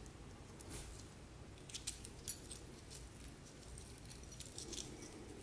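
Thin metal lamination strips of a small torn-apart transformer clinking and jingling faintly against each other as they are handled in the hands, in scattered light clicks with a cluster around two seconds in.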